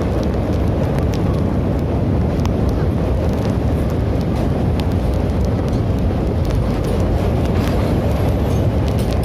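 Passenger train running, heard from the coach: a steady rumble with wind on the microphone and scattered faint clicks.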